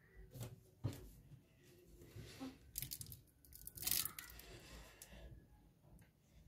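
Handling noise: two sharp knocks in the first second, then two bursts of crinkly rustling about three and four seconds in.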